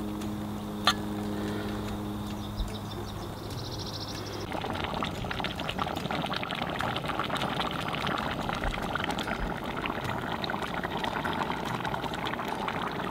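Tomato and lima bean stew simmering in an enamelled cast-iron pot as it is stirred with a wooden spatula: a dense bubbling crackle that starts abruptly about four and a half seconds in. Before that there is a steady low hum with a single click about a second in.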